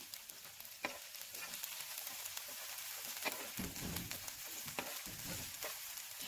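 Sliced onions and chopped green chillies sizzling gently in oil in a non-stick frying pan, while a metal fork stirs them, clicking against the pan a few times.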